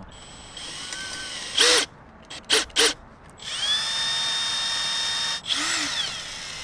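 Electric hand drill with a long drill bit being triggered in short bursts, its motor whine rising and falling with each squeeze. It then runs steadily for about two seconds, cuts off, and gives one more brief rev.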